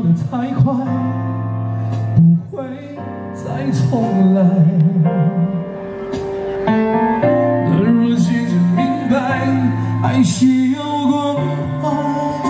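Live music: a male singer holding long notes with vibrato over sustained keyboard chords, amplified through an Ashley PA sound system.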